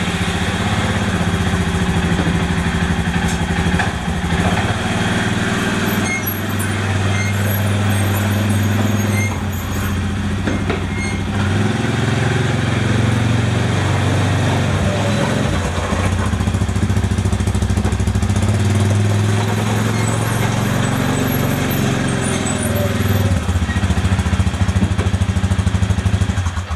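ATV engine running loud and steady after starting, its pitch rising and falling in the middle as it is driven, then cutting off at the very end.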